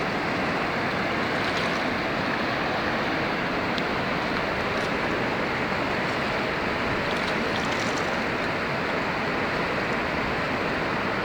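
Steady rushing of storm water, an even noise with a few faint ticks.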